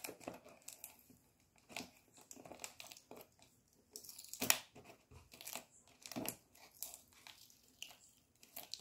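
Thin packaging crinkling and tearing as it is worked open by hand, in short irregular crackles with one louder crackle about four and a half seconds in.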